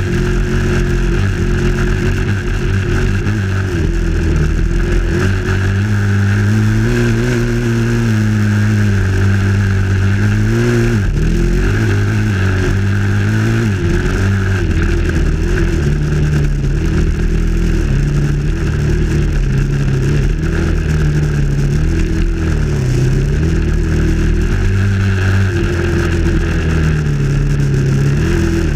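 Dirt bike engine running under way on a dirt trail, its pitch rising and falling again and again as the throttle is opened and closed, with a steady hiss over it.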